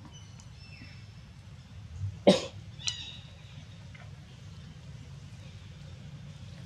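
A loud, short cough-like burst a little over two seconds in, followed about half a second later by a smaller, sharper call. Under it run a steady low hum and a few faint high chirps in the first second.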